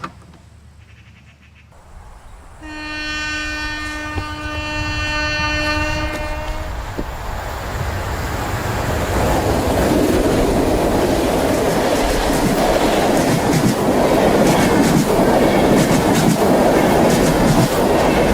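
A train horn sounds one long steady blast of about four seconds. Then the noise of a passing train builds and stays loud, with wheels clattering on the rails.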